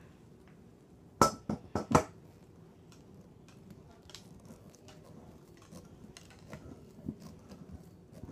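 Metal scooter parts clanking as the stunt scooter is assembled: a quick run of about four sharp metallic knocks a little over a second in, then lighter clicks and rattles as the parts are handled and fitted.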